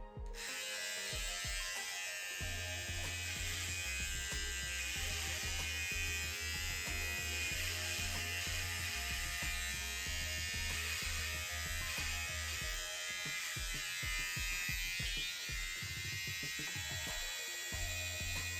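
Electric hair clippers buzzing steadily while trimming the ends of wig hair to an even length, starting abruptly at the outset, over background music.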